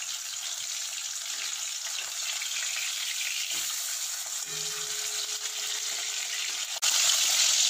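Whole tilapia frying in hot mustard oil in a metal kadai, a steady sizzle, while a metal spatula works in the pan to turn the fish over. The sizzle gets suddenly louder near the end.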